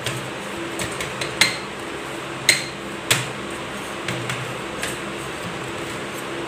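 Knife blade clinking against a stainless steel cup as it is run around the inside edge to loosen a steamed cupcake: a string of irregular sharp metal clicks, the loudest about two and a half seconds in, a few with a brief ring. A steady low hum runs underneath.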